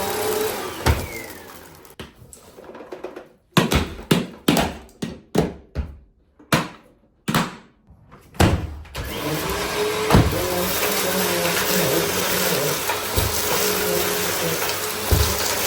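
Bissell CleanView compact vacuum cleaner's motor winding down as it is switched off, then about ten sharp knocks and clatters a few seconds apart, then the vacuum starting up again and running steadily.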